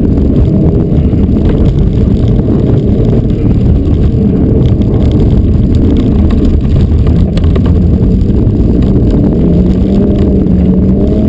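Mitsubishi Lancer Evolution's turbocharged four-cylinder engine driven hard, heard loud from inside the cabin over heavy road noise; the engine pitch wanders up and down and climbs near the end.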